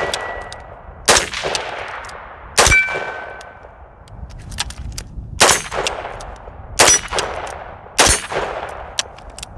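AR-15 rifle firing five single shots, each about one and a half to two and a half seconds apart. A metallic ringing tone lingers after some of the shots. Each shot needs a turn of the Kunvirt safety selector to reset the trigger, since the rifle is set up to fire one shot at a time.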